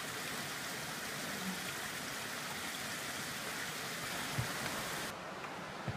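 Small woodland creek running and splashing down rock ledges: a steady rushing hiss of water, which drops away abruptly about five seconds in.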